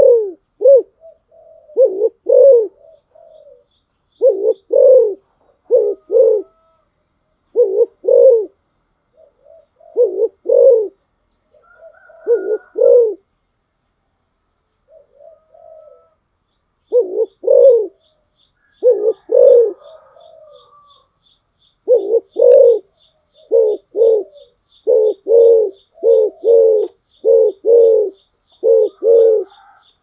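Spotted dove cooing: repeated phrases of low, paired coo notes, pausing for a few seconds about halfway through, then coming in quicker succession.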